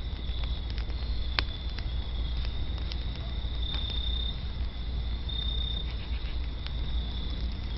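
Wood fire crackling with scattered sharp pops, one louder snap about a second and a half in, over a steady high-pitched insect trill and a low steady rumble.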